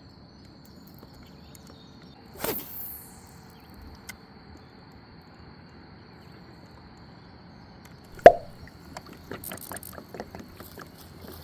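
Casting and working a small topwater popper lure from a kayak: a splash about two and a half seconds in, a single sharp loud knock a little after eight seconds, then a run of light clicks and small plops.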